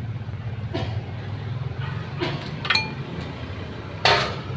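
Metal tools and parts clinking as they are handled and set down during a brake repair, a few sharp clinks, one with a short metallic ring, and a louder clatter near the end. A steady low hum runs underneath.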